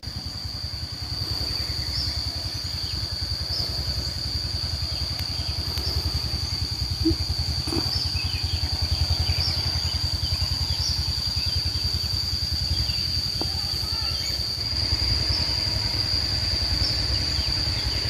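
A steady high-pitched insect drone that holds one pitch throughout, over a continuous low rumble.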